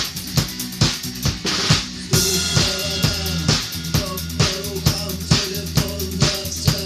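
Rock drum kit playing a steady beat of bass drum and snare, about two strokes a second. About two seconds in, a cymbal crash comes in and sustained pitched notes join the drums.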